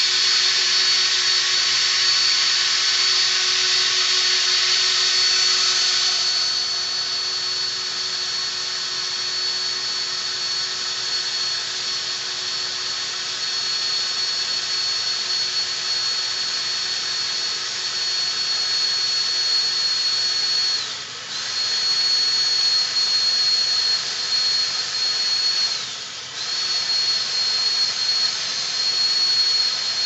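Electric drill running steadily with a high whine as a carbide bit grinds slowly into a gun safe's hardened steel hard plate. The drill eases off briefly twice, about two thirds of the way through and again near the end.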